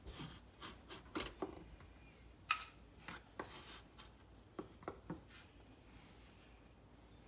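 Faint, scattered scrapes and clicks of a small measuring cup scooping granulated sugar from a ceramic canister and tipping it into a glass measuring cup.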